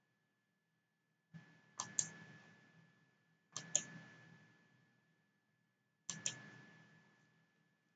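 Computer mouse clicked three times, about two seconds apart, each a sharp double click.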